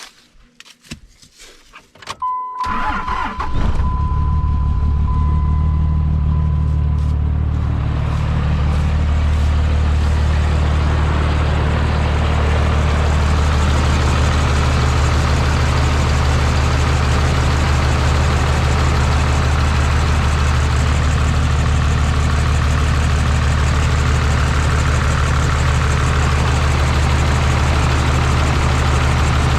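A 3rd-gen Cummins inline-six turbo diesel is cranked and starts about two seconds in, then idles steadily, running rough, with a thin high whine for the first few seconds after starting. The engine is turning a newly fitted A/C delete belt routed over a smooth pulley.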